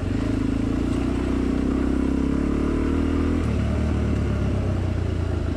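Dirt bike engine running under throttle on a dirt trail, its note climbing slightly, then changing abruptly about three and a half seconds in.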